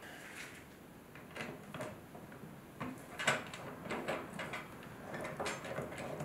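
Screwdriver hand-threading screws through a bathtub's overflow fitting into its metal mounting plate: faint, irregular small clicks and scrapes of metal on metal.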